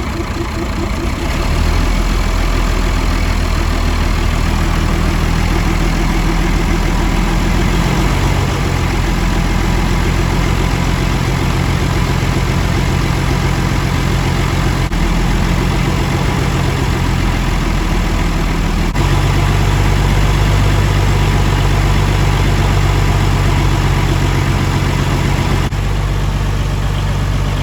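Old tractor's engine running steadily under load while driving a DC welding dynamo through its PTO. The engine speed shifts up in steps a few times as the revs are raised to bring up the dynamo's output.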